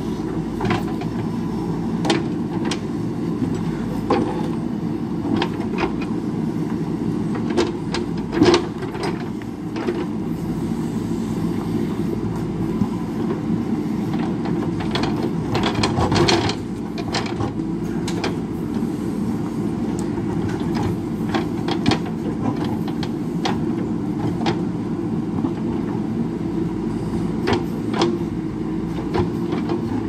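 JCB backhoe loader's diesel engine running steadily under load as the backhoe digs, with repeated knocks and clatter of the bucket in rocky soil and stones. It works harder for a stretch around the middle.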